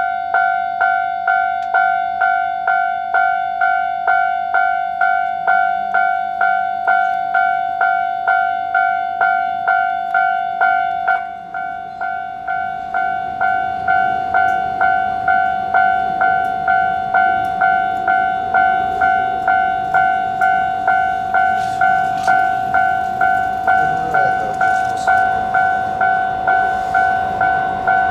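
Japanese level-crossing warning bell ringing its repeated two-tone "kan-kan" at about two strikes a second, with a brief break about eleven seconds in. In the second half a rumble builds under it as a train approaches.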